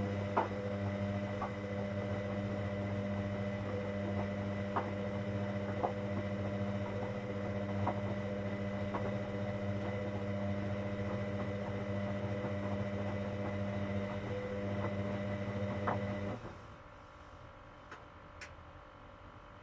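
Hoover Dynamic Next washing machine's drain pump humming steadily while pumping out water, with a few faint clicks; it cuts off about 16 seconds in.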